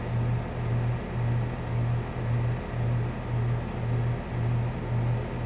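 Newly installed 5-ton Rheem central air conditioning system running: a steady low hum that swells and fades about twice a second, over a broad rushing noise. Its pressures and temperatures read normal, and the system is running well.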